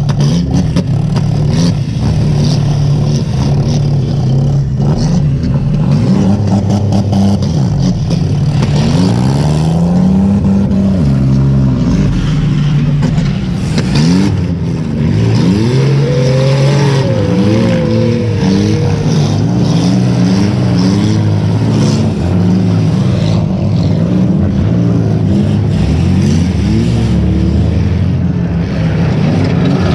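Demolition derby car engines revving hard, several at once, their pitches rising and falling and overlapping, with a few brief knocks.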